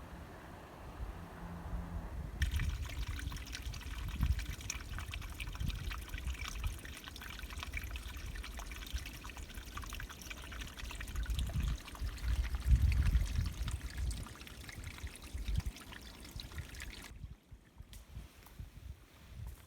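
Water trickling and splashing, a steady crackly wash of running water with low rumbles underneath, cutting off abruptly near the end.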